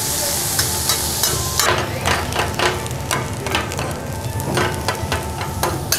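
Food sizzling in oil on a steel teppanyaki griddle, a steady hiss at first, then metal spatulas scraping and clacking against the flat-top over and over.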